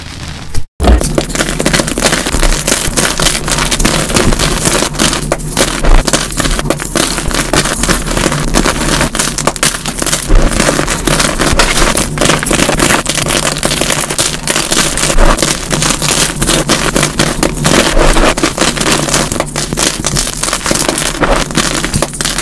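Hands crushing and crumbling dyed gym chalk blocks, played back at double speed: a dense, continuous crunching and crackling. The sound cuts out for a split second less than a second in, then the crunching starts again.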